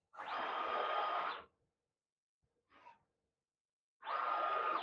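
Two hisses of released air, the first about a second and a half long and the second shorter, each with a faint steady whistle: the actuators of a CNC router's automatic dust boot lifting the boot and of the RapidChange ATC tool changer opening its dust cover for a tool-length measurement.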